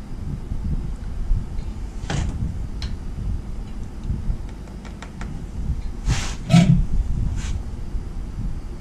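Handling noises: a few sharp clicks, then three short rustling scrapes, the loudest about six and a half seconds in, over a steady low rumble.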